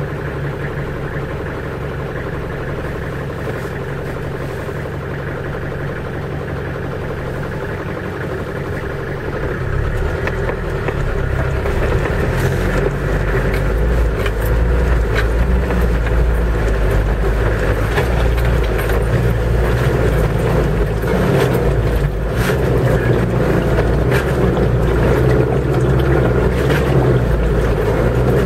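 Off-road vehicle engine driving through a deep, flooded trail puddle, with water splashing around it. About ten seconds in, the engine gets louder and deeper as it pushes harder through the water. A few sharp clicks come through in the second half.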